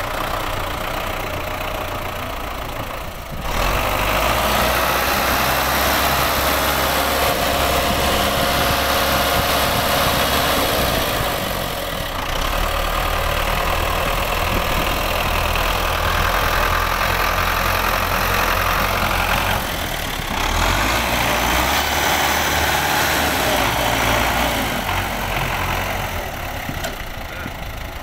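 Belarus tractor's diesel engine running hard while working its front loader, louder from about three and a half seconds in, dipping briefly twice, and easing off near the end.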